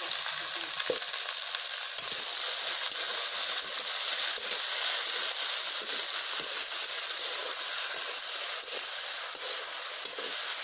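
Chopped okra sizzling steadily as it fries in oil in a metal kadhai, stirred with a metal spatula that gives a few light clicks against the pan.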